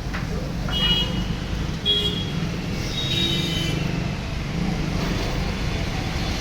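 A motor vehicle engine runs with a steady low rumble. Three short, high-pitched tones sound over it, about one, two and three seconds in.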